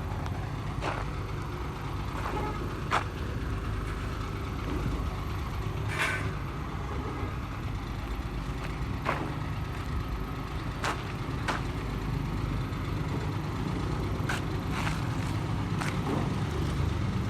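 Steady low rumble of heavy vehicles and machinery running at road works, with scattered sharp clicks and knocks about every one to three seconds.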